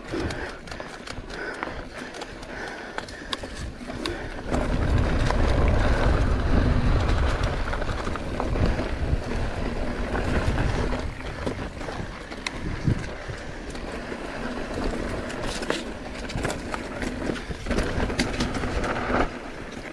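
Mountain bike riding over a dry dirt and gravel trail: steady tyre noise with scattered clicks and rattles from the bike and loose stones, and a heavier low rumble for several seconds from about four seconds in.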